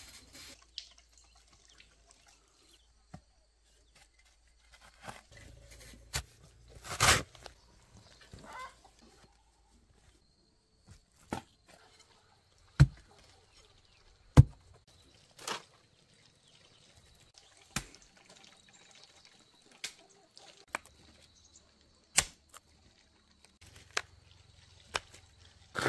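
Sharp, separate knocks and taps at irregular spacing, the loudest about seven seconds in. A faint steady high tone runs underneath from about ten seconds in.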